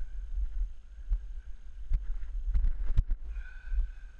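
Irregular thumps of footsteps and camera jostling while walking on a dirt riverbank, over a low, uneven rumble of wind on the microphone. A faint steady high tone comes in near the end.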